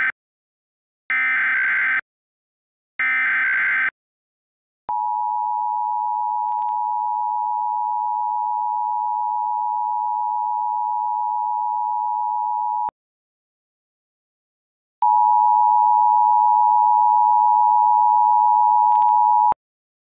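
Software-generated Emergency Alert System tones. The end of one SAME header burst is followed by two more buzzing digital data bursts about a second apart. Then the two-tone EAS attention signal (853 and 960 Hz) sounds steadily for about eight seconds, stops for about two seconds, and sounds again, louder, for about four and a half seconds.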